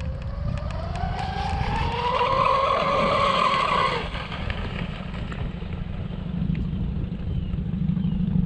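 Zonda 41 RC boat's twin electric motors whining at full throttle, rising in pitch for the first couple of seconds, holding, then dropping away about four seconds in. A steady low rumble of wind on the microphone runs underneath.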